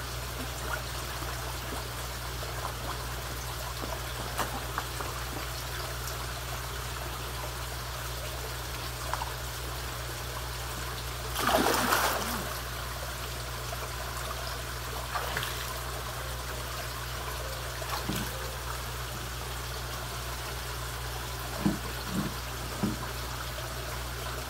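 Steady trickle of water running into a koi pond, with a loud splash about halfway through as a koi thrashes at the surface taking food from a hand, and a few smaller splashes later.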